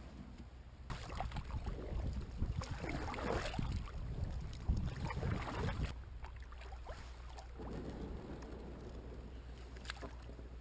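Noise of a sit-on-top fishing kayak being handled at the shore: scraping and shuffling for about five seconds from a second in, then quieter handling noise.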